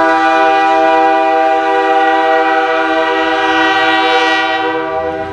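Diesel locomotive air horn of NS C40-9 8883 sounding one long, loud chord that fades near the end. A low engine note rises underneath as the horn dies away.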